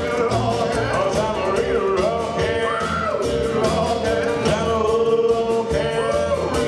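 A live rock-and-roll band playing: electric guitar, upright double bass, electric piano and drums, with a steady beat and bending melody notes over it.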